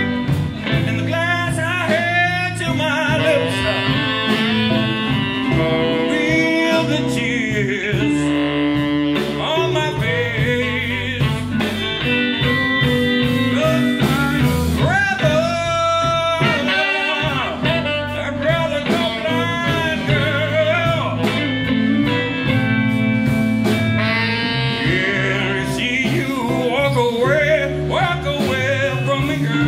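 Live blues band playing a slow soul-blues song: electric guitar and saxophone over bass and drums, continuous and steady.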